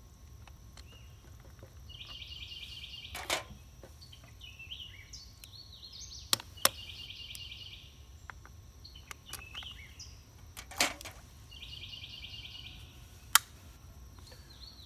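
Sharp metallic clicks and snips of an aluminium sinker mold being handled and the lead sprues being cut off with side cutters, about five in all. Short chirping trills repeat in the background every few seconds.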